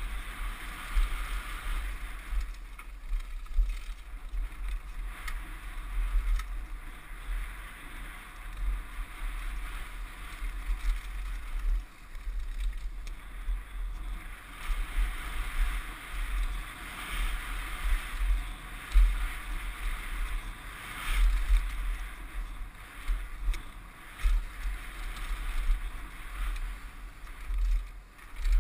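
Mountain bike rolling down a dirt and gravel trail: a steady hiss of tyres on loose ground, with occasional knocks and rattles over bumps. Wind buffets the camera microphone in a fluctuating low rumble.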